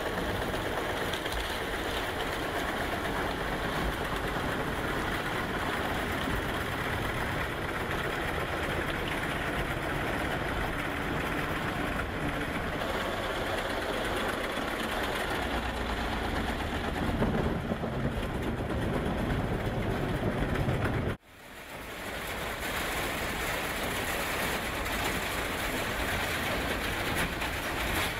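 Heavy scrapyard machinery running steadily: the diesel engine of a material handler working an orange-peel grapple. The sound cuts out for a moment about three-quarters of the way through, then carries on.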